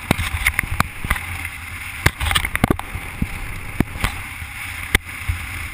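Wind rushing over and buffeting a microphone held out of a moving car's window: a steady low rumble with a dozen or so sharp pops and knocks from gusts and from the hand near the camera.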